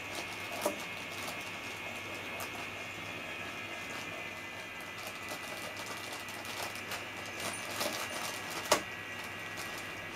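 Small battery motor of a cat toy running steadily inside its plastic bag, with scattered crackling ticks of the bag; a sharper tick stands out near the end.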